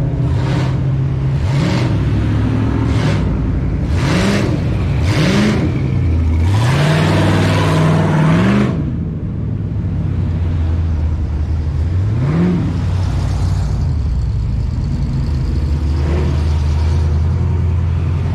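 Pickup truck engines idling, with about five short throttle revs, each a quick rise in pitch. The longest and loudest is a run of revs a little before halfway through, followed by a steady engine note as the trucks roll past.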